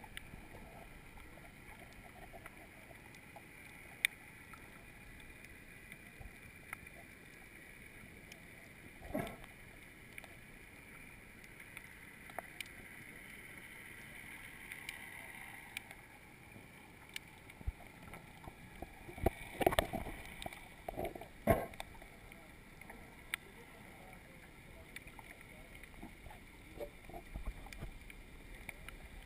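Underwater ambience heard through a GoPro's waterproof housing: a faint, muffled steady hiss with scattered sharp clicks and knocks, a cluster of louder ones about twenty seconds in.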